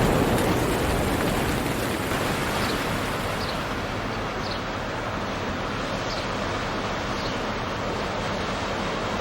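Steady rain hiss, with a low thunder rumble dying away over the first few seconds.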